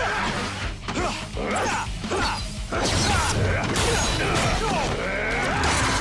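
Sword-fight sound effects over action music: several sharp hits and blade clashes in the first three seconds, with grunts and shouts.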